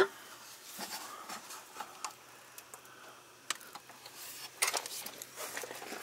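Scattered small clicks and rattles of hands working the AC compressor clutch's wiring connector in an engine bay. A faint low hum comes in about two seconds in.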